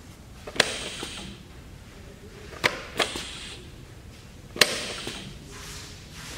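Pneumatic vise on a Hyd-Mech DM-10/2 band saw being cycled: a sharp metallic clack, each followed by a short hiss of air, repeating about every two seconds, with a double clack about three seconds in.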